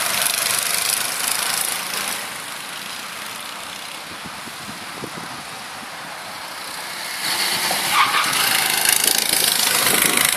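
Go-kart engines running as karts lap the track: loud at first, fading about two seconds in, then rising again from about seven seconds in as a kart comes round toward the microphone.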